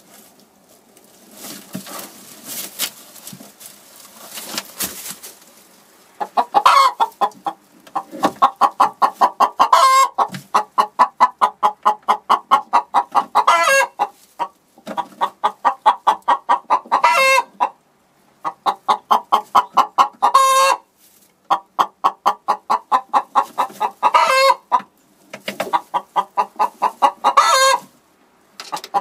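Straw rustling in a nest box, then a hen cackling: runs of rapid clucks, each ending in a loud drawn-out squawk, repeating every few seconds. This is the cackle hens make around laying.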